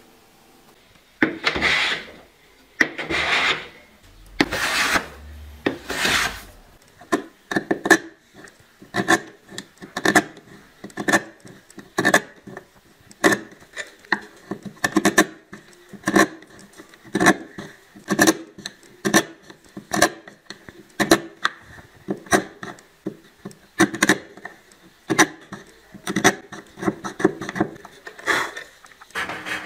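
A small wooden hand plane taking four long strokes across wood, each shaving swishing off, followed by a long run of short scraping cuts, about two a second, as an edge tool pares small chips from wood.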